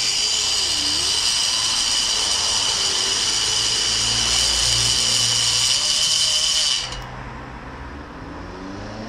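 Die grinder running with a steady high whine while grinding an old cast iron small-block Chevy cylinder head. The whine cuts off abruptly about seven seconds in, leaving a fainter low hum.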